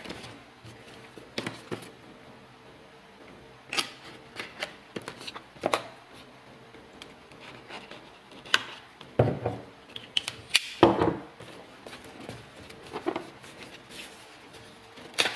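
Pocket-knife blade cutting the seals on a phone's cardboard box, then the box being handled and turned on a wooden floor: a series of short, irregular scrapes, taps and rustles.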